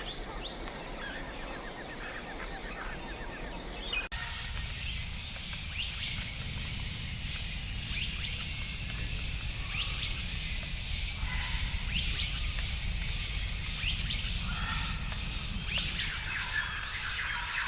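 Outdoor natural ambience with birds chirping and calling. About four seconds in it changes abruptly to a louder bed: a low rumble, a steady high hiss, and repeated short bird chirps.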